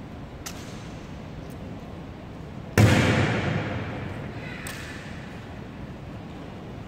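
A single loud strike from the honor guard's drill, a boot or rifle slammed on the hall's stone floor about three seconds in, echoing and dying away over a second or so in the large hall. A few faint clicks and the low murmur of onlookers lie beneath.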